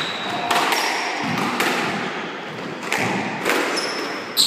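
A squash ball being struck and hitting the court walls: about five sharp knocks with a hall-like echo. Shoes squeak on the wooden court floor near the start and again near the end.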